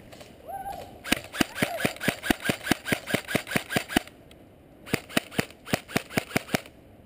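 M4-style airsoft rifle firing rapid single shots, about five a second: a string of some fifteen shots over three seconds, a short pause, then about eight more.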